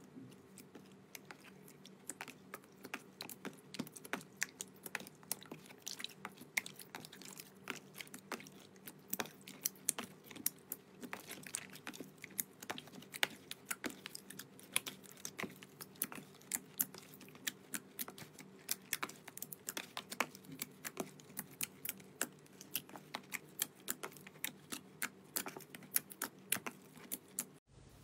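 Clear pink slime being pressed and poked by hand in a plastic tub, giving rapid irregular sticky clicks and small pops over a faint steady hum. The sound cuts off abruptly near the end.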